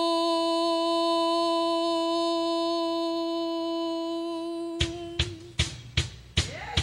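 Hymn backing music: one long, steady held note that fades slightly. About five seconds in, a drum beat starts at about two and a half strikes a second.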